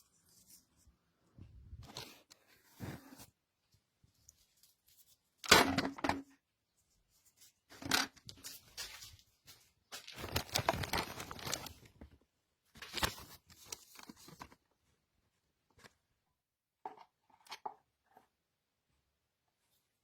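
Irregular bursts of tearing, rustling handling noise, about six in a row with quiet gaps between them, the sharpest about five and a half seconds in.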